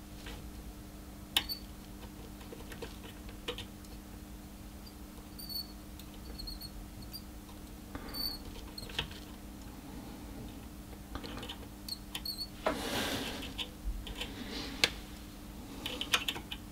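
A plastic alignment tool turning a 100-ohm trimmer potentiometer in a transceiver's SWR bridge: faint small clicks and scrapes with short high squeaks, over a steady low hum. There is a soft rush of noise about two-thirds of the way through.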